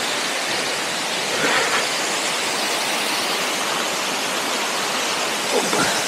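Steady rush of water falling from the 85-metre Bovska Skaklya waterfall.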